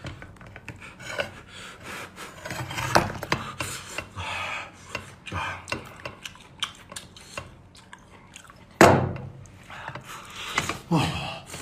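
Close-up eating sounds from a person tearing apart and biting into a cooked lobster: shell cracking and rubbing, small clicks and chewing, with one louder sudden sound about nine seconds in.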